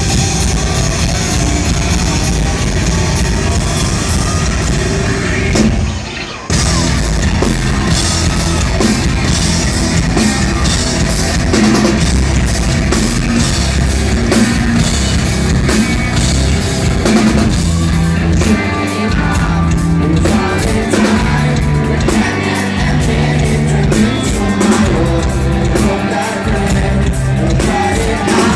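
A rock band playing live and loud, with pounding drums, distorted electric guitars and bass and some singing, heard through a phone's microphone. The band cuts out briefly about six seconds in, then comes straight back in at full volume.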